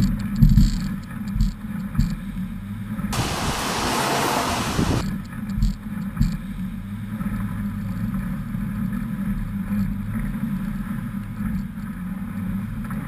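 SUV engine running steadily as it drives through muddy ruts, heard from a hood-mounted camera. Several sharp knocks and thumps come from the rough ride in the first couple of seconds. About three seconds in, a loud rushing noise lasts roughly two seconds.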